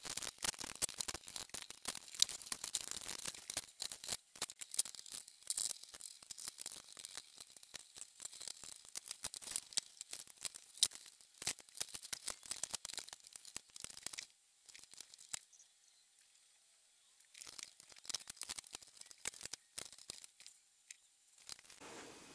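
Many small clicks, taps and scrapes of screws being backed out and the plastic case of a Toshiba laptop being handled and pried apart, with a brief lull about two-thirds through.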